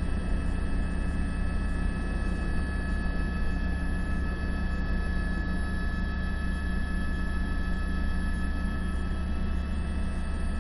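Steady low drone of a helicopter's rotor and engine, with a faint steady whine above it.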